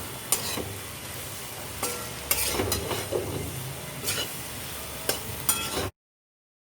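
A spatula stirring and tossing toasted bread cubes through a sizzling masala in a frying pan, with repeated scrapes and clinks against the pan that ring briefly. The sound cuts off abruptly about six seconds in.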